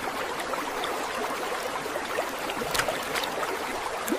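Running water trickling and splashing in a steady wash, with scattered small drips: a rain puddle on the street draining into a drain hole.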